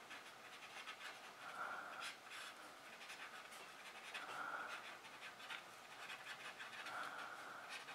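Paper tortillon (blending stump) scratching and smudging graphite on paper in short, light, faint strokes. A faint soft hiss comes back about every two to three seconds.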